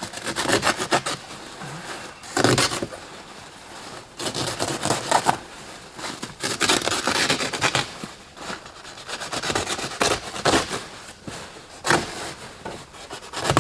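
Deployed airbag being wrestled out of a car's interior: fabric and plastic scraping and rustling in irregular bursts.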